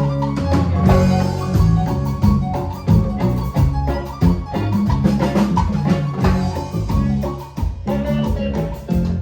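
A band playing upbeat cumbia music, with bass, drums and percussion under a melody on a keyboard or mallet-like instrument, to a steady beat.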